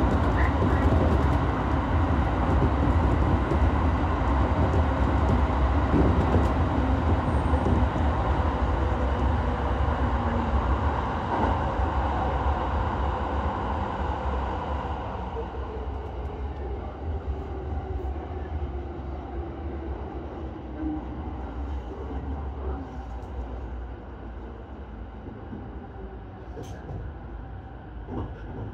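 Electric commuter train running through a tunnel, heard from the front cab: a steady rumble of wheels and motors that grows quieter in the second half as the train slows for a station, with a faint falling whine as it brakes.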